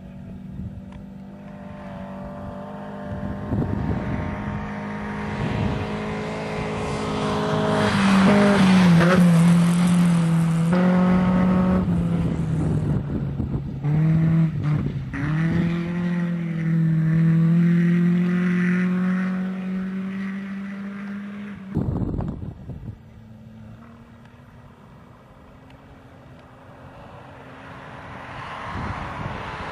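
Rally car engines at full throttle on a gravel stage: one car comes closer and louder, its engine note dropping with gear changes and dipping briefly as the driver lifts off about halfway through, then holding steady. After a cut about two-thirds of the way in, another car's engine is heard quieter, rising steadily as it approaches.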